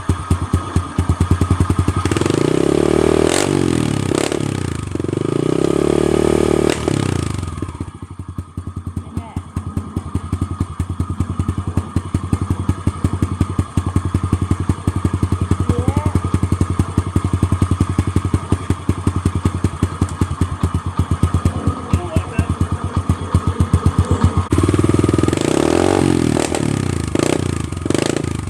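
Yamaha TT-R110 pit bike's small four-stroke single running through an FMF aftermarket exhaust. It is revved up and back down twice a few seconds in, settles to a steady idle, and is revved again near the end.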